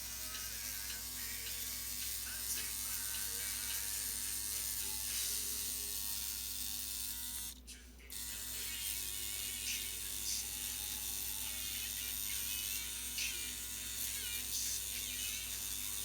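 Electric tattoo machine buzzing steadily, with a brief drop-out just before the middle.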